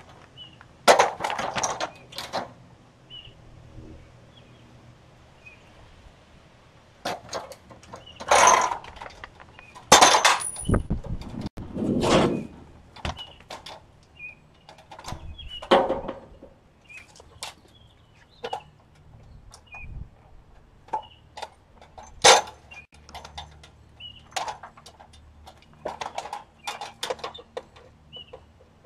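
Irregular knocks, clatters and scrapes of dishwasher parts being pulled apart by hand, with several louder bangs among quieter handling noises.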